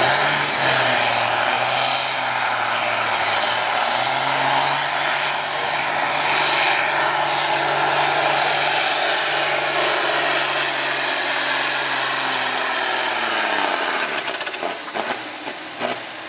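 John Deere farm tractor's diesel engine running flat out under heavy load, dragging a weight-transfer sled, with a steady drone and a high whine over it. About three quarters through the throttle comes off: the engine note drops and the high whine winds down.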